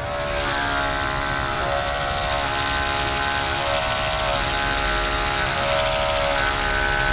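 A sustained droning chord of several steady pitches over a low rumble, with a higher note swelling in and fading out about every two seconds.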